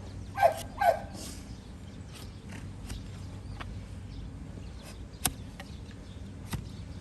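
A dog barks twice in quick succession, each bark short and falling in pitch, about half a second in. A few sharp clicks follow later.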